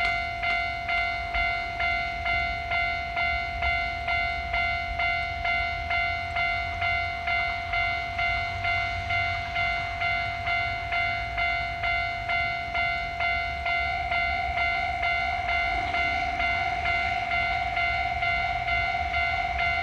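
Japanese railroad crossing alarm ringing its 'kan-kan' bell tone in a steady, even rhythm. About 14 seconds in the ringing thickens and the strokes blur together.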